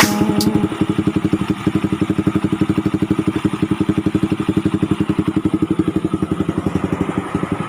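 Single-cylinder engine of a Bajaj Rouser 135 motorcycle idling with an even, steady putter, running on its newly replaced carburetor.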